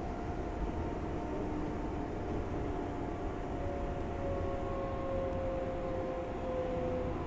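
R142A subway car running, heard inside the car: a steady rumble of wheels on rail with a whine of several steady tones from the traction motors; a lower whine tone joins about three and a half seconds in.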